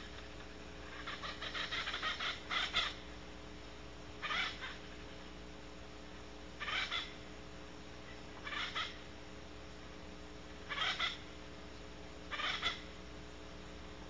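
Barn owl giving hissing calls in its nest cavity: a quick series about a second in, then single hisses roughly every two seconds.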